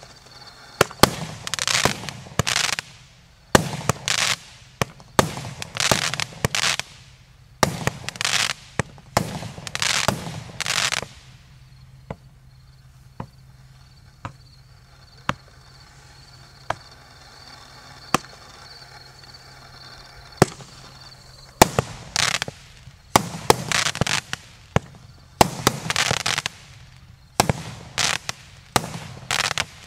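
Joker Fireworks 64-shot 15 mm (0.6-inch) firework cake, JF C15-64/01, firing: a quick run of launch thumps and bursts, each with a hissing tail. About twelve seconds in it thins to a few single cracks, then about nine seconds later fast volleys start again.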